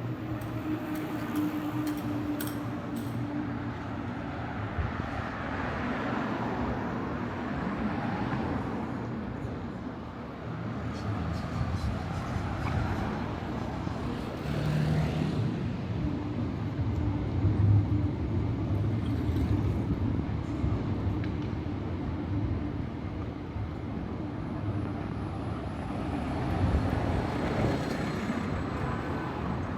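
City road traffic: vehicles passing with engines running and tyre noise, swelling as a few go by, over a steady low engine hum.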